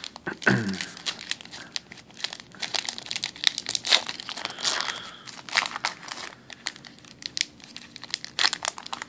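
Foil-lined Magic: The Gathering booster pack wrapper being torn open and crinkled by hand, a dense run of sharp, irregular crackles and rustles.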